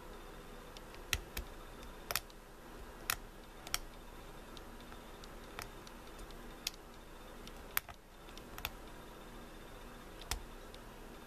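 Irregular, sharp metallic clicks of a lock pick working the pins of an older Corbin pin-tumbler lock under tension, about a dozen taps spread unevenly, with the loudest near two and eight seconds in.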